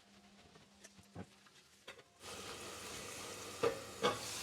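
Vegetables sautéing in olive oil in a pan: faint at first with a few small clicks, then a steady sizzle rises about two seconds in. Near the end come two sharp clacks against the pan.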